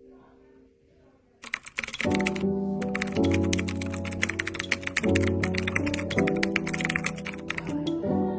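Background music: sustained chords changing about once a second over a dense, fast clicking texture, starting after a quiet second and a half.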